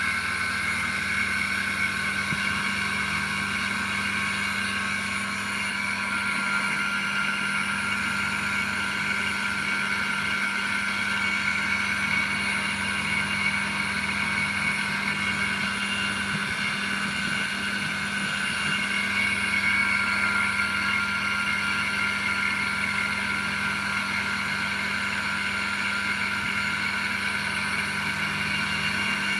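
RC-airplane outrunner motor rig spinning steadily, with a constant electric whine over a low hum.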